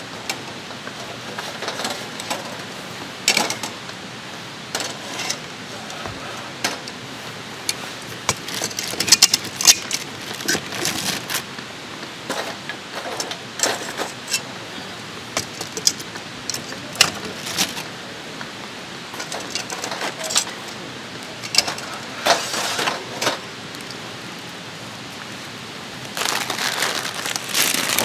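Wood fire in a folding fire pit crackling, with irregular sharp pops over a steady hiss. A louder rustling starts near the end.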